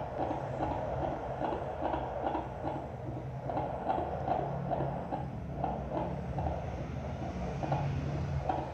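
Fetal heartbeat through a handheld fetal Doppler's loudspeaker: a fast, even run of whooshing beats, a little over two a second, over a steady low hum. This is the heart of a baby late in pregnancy.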